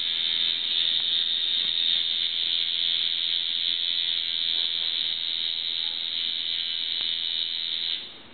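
Electric tattoo machine buzzing steadily with a high, even whine, then cutting off near the end.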